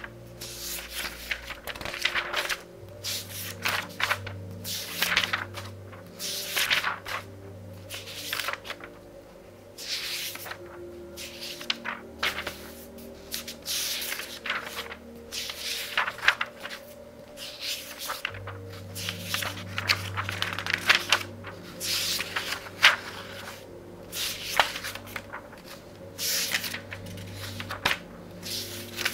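Thin pages of a very thick book turned by hand in quick succession, each turn a short papery swish and rustle, over faint soft background music.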